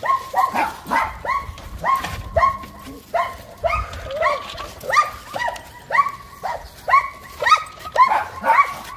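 A dog barking over and over in short, high-pitched barks, about three a second.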